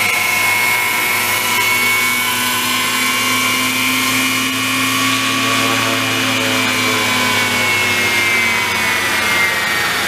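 Scale EC135 model helicopter running as it hovers low and sets down, a steady high mechanical whine from its motor and rotors. The pitch sags slightly around the middle.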